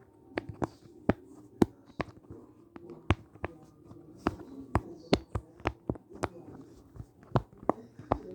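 Push-pop bubble fidget toy being pressed bubble after bubble, each bubble giving a sharp pop or click as it snaps through to the other side, in an uneven run of about three clicks a second.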